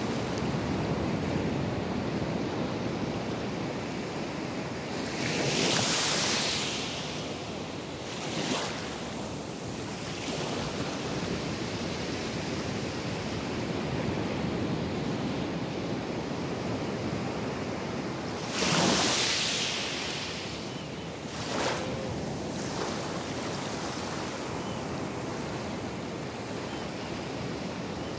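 Ocean surf breaking and washing over shallow water on a sandy beach, a steady wash of noise. Waves crash more loudly twice, about six and nineteen seconds in, and each is followed a couple of seconds later by a shorter, smaller splash.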